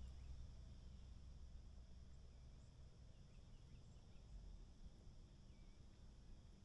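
Near silence: faint woodland ambience with a steady high insect hum, a few tiny faint chirps, and a low rumble underneath.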